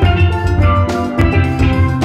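Background music with a steady bass beat under a melody of bright, short pitched notes.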